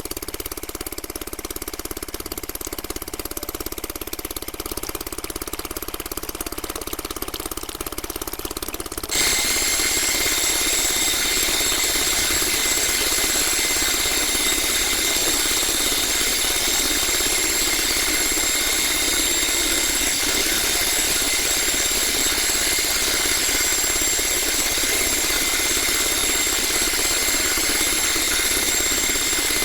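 Small electric hobby motors of a homemade model drilling rig running steadily. About nine seconds in another motor switches on: the sound gets louder and a steady high whine joins it.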